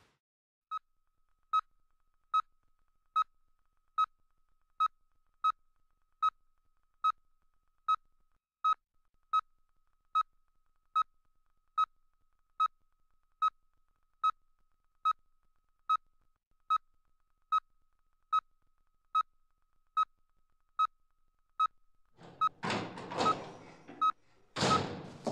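Hospital heart monitor beeping steadily, one short tone at the same pitch about every 0.8 seconds, a calm regular heartbeat. A louder rough, rasping noise joins in over the last few seconds.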